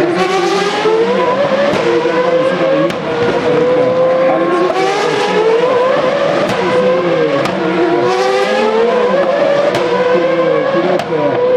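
Formula Renault 3.5 single-seaters with V8 engines accelerating hard, several cars overlapping. Their high-revving notes climb in pitch repeatedly, broken by quick upshifts, with one wave following another.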